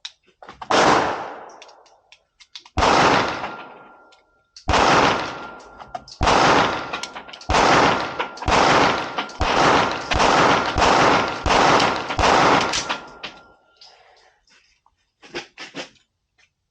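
Staccato P Duo 9 mm pistol firing about ten shots at an even, unhurried pace of roughly one a second, each with a short echoing tail.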